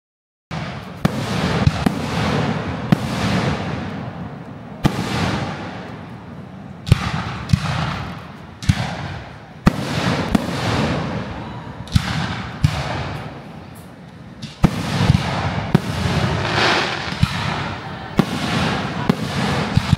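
Fireworks display: aerial shells bursting in sharp bangs every second or two, with crackling between them.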